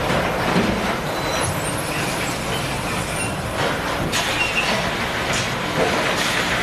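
Automatic sack palletizing machine running: a steady mechanical din from its conveyor and gripper, with a few short knocks from about the middle on.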